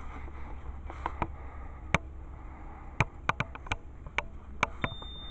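A piezo beeper on an ATV safety strobe gives one short, high beep near the end, the first of its intermittent warning beeps. Before it comes a string of sharp, irregular clicks.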